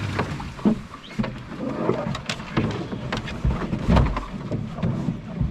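Rustling brush and branches with irregular knocks and low thumps, as people and gear push through dense bush and over fallen logs.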